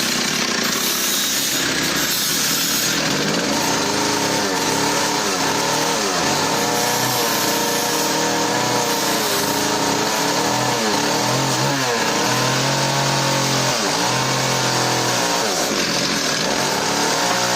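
Engine-powered sawmill machinery running loudly and continuously, its engine speed repeatedly dipping and rising again.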